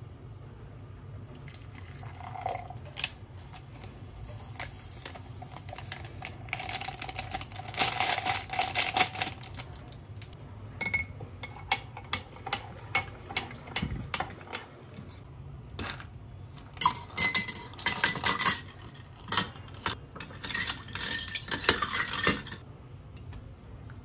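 Dishes and cutlery clinking and clattering in several short bursts of sharp knocks, some with a brief ring, over a steady low hum.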